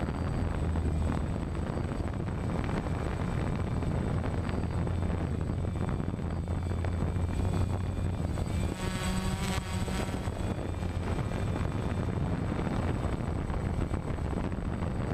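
DJI Phantom quadcopter's four electric motors and propellers buzzing steadily in flight, heard from the camera riding on it, over a low rumble. About halfway through the whine wavers briefly.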